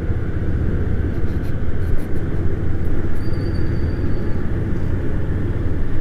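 Steady low rumble of a vehicle moving along a city street: engine and road noise with wind on the microphone, and traffic around it.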